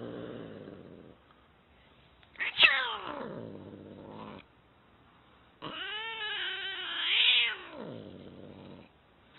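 Domestic cat yowling three times: a short low moan, then a call that drops steeply from high to low pitch, then a long drawn-out wail that grows louder toward its end before falling away.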